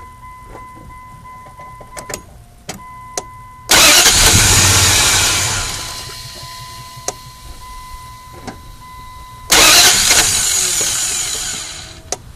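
4.7-litre engine being started twice: each time it catches with a sudden loud burst that fades away over about two seconds instead of settling into an idle, failing to keep running. A steady dashboard warning chime and a few clicks sound before and between the attempts.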